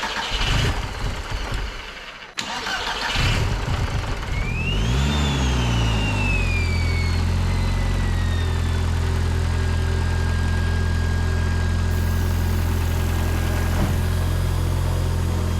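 A car engine starts: about four seconds in, a whine rises and falls away as it cranks and catches with a brief flare, then it settles into a steady idle.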